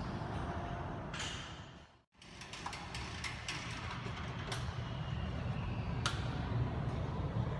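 A vehicle engine running with a steady low rumble and scattered light clicks. The sound cuts out completely for a moment about two seconds in, then resumes.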